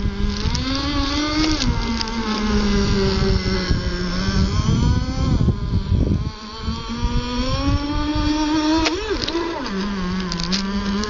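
CEN Racing Gray Thunder GP radio-controlled racing boat's engine running, its pitch rising and falling as the throttle is worked. It drops off briefly about six seconds in, then there is a quick sharp rev a few seconds later.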